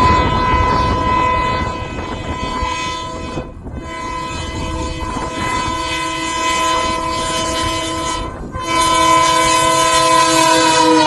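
Indian Railways diesel locomotive's horn blown in three long blasts, with short breaks about a third of the way in and again about three-quarters through. The last blast is the loudest as the locomotive draws near, with the train's running noise beneath.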